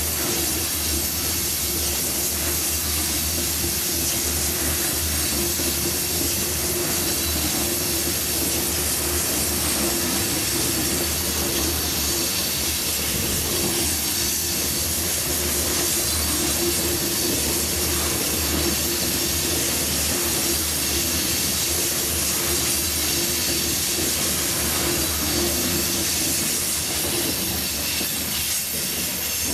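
Coal hopper cars of a unit coal train rolling past close by on a curve: a steady rumble and clatter of steel wheels on rail, with a constant hiss and a steady squeal from the wheels on the curve.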